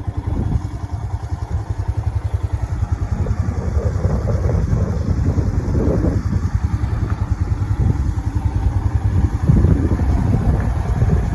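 Motorcycle engine running while riding, a fast, even low pulsing that grows a little louder toward the end.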